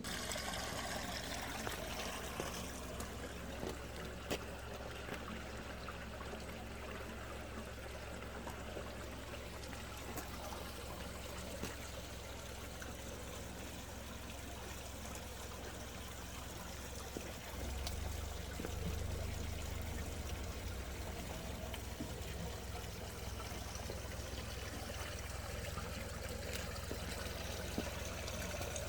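Spring water pouring steadily out of a rock crevice and splashing. A low rumble underneath gets louder a little past halfway.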